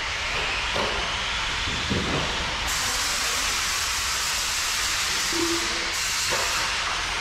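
Electric 1/10-scale short course RC trucks racing on the track: a steady hiss of tyres and drivetrains, with faint motor whines rising and falling in pitch.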